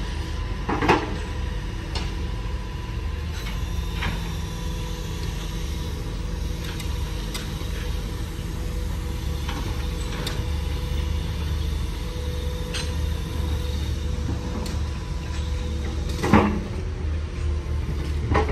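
Diesel engines of heavy construction machinery running steadily with a low rumble and a faint steady whine. Two loud metallic clanks, about a second in and near the end.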